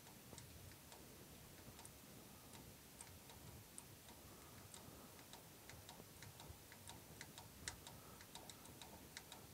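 Faint, irregular clicks from a David Brown 990's diesel fuel system as it is bled by hand, with the lift pump worked while the injection pump's bleed screw is open. The clicks come more often in the second half, with no engine running.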